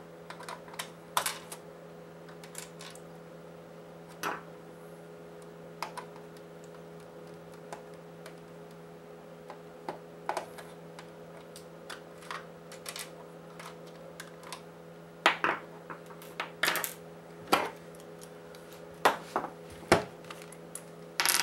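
Scattered light clicks and taps of a screwdriver and small screws on a PlayStation 4's plastic chassis as screws are taken out, with a denser run of sharper clicks in the last few seconds.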